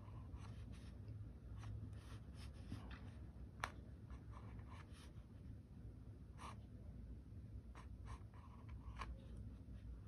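Faint scratchy strokes of a fine liner brush on paper as small feather scales are sketched, with a sharper tap about three and a half seconds in.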